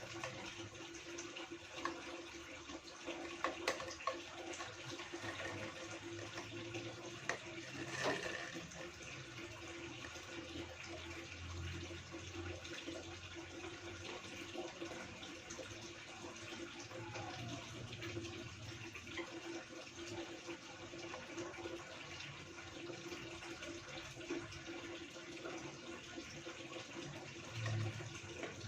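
Steady sound of running water, with a light click about four seconds in and another about eight seconds in.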